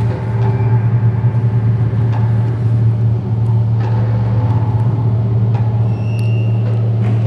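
Loud, steady low electronic drone: one deep hum with a stack of overtones above it, holding unchanged, with a few faint clicks over it.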